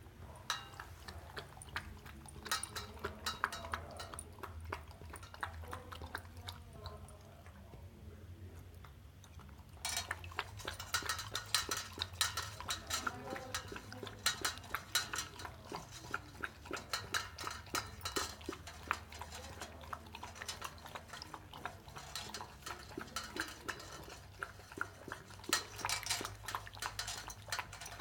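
Puppy lapping water from a stainless steel bowl: a rapid run of wet laps and splashes against the metal, thinning out for a few seconds about a quarter of the way in, then picking up again.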